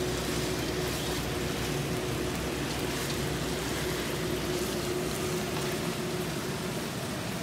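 Minced meat and onion sizzling in a frying pan as it is stirred with a wooden spoon, a steady frying hiss with a faint hum underneath that fades near the end.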